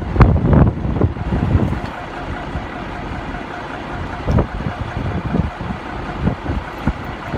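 Heavy truck engine running steadily, with gusts of wind buffeting the microphone in the first couple of seconds.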